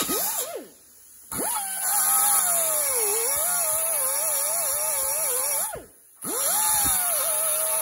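Hand-held power tool trimming off excess sheet metal. It runs in bursts: a short run that winds down about half a second in, a long cut of about four and a half seconds, then a brief stop and another run. Its whine wavers in pitch as it bogs under load, over a steady high hiss.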